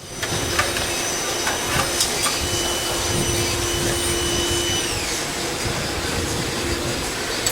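Steady whooshing machine noise from a running motor, with a high whine that falls in pitch about five seconds in, and a few light clicks.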